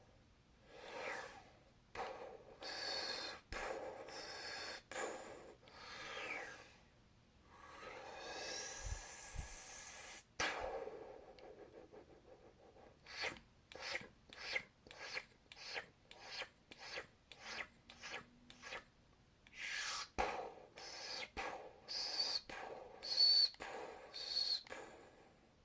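Mouth-made sci-fi sound effects imitating laser blasts and explosions: breathy hisses and whooshes, a long rising sweep around the middle, then a quick run of short sharp bursts and a few whistly zaps near the end.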